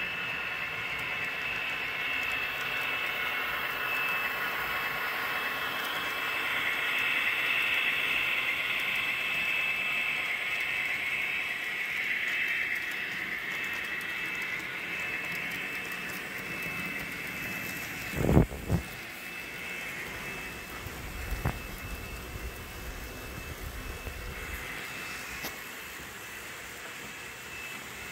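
Model train locomotives running on the layout's track: a steady whir of small electric motors and wheels on rail with a thin, high, steady whine. About 18 seconds in there is a loud double knock, followed by a few lighter clicks.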